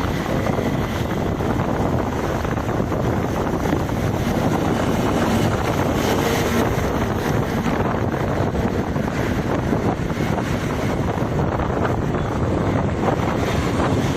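Steady wind noise buffeting the microphone over a low rumble, the kind heard from a moving vehicle.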